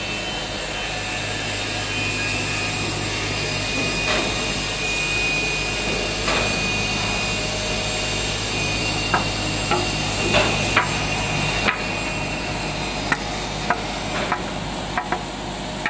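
Four-side planer moulder running steadily as a board feeds through and is cut with lengthwise grooves. From about nine seconds in, a series of sharp knocks and clicks sounds over the machine.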